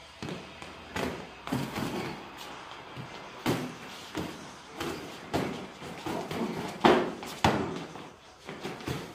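Kickboxing sparring: gloved punches and shin-guarded kicks landing on gloves, arms and bodies, a string of irregular sharp thuds and slaps. The two loudest hits come close together about seven seconds in.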